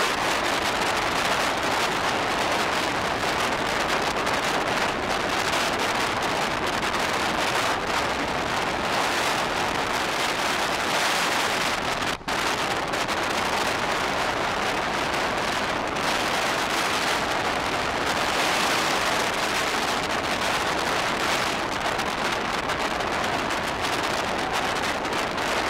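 Steady rush of wind and running noise from a fast-moving passenger train, heard from an open coach window or door, with a brief break about halfway through.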